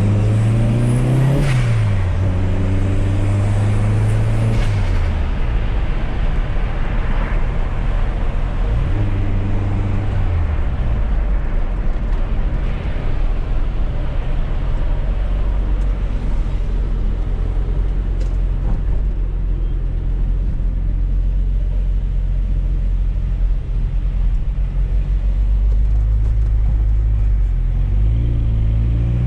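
Fiat Coupé 16V Turbo's turbocharged four-cylinder engine, heard from inside the car. Its revs rise and drop a few times in the first five seconds and again about ten seconds in, then it runs at low steady revs under road and tyre noise, and the revs pick up again near the end.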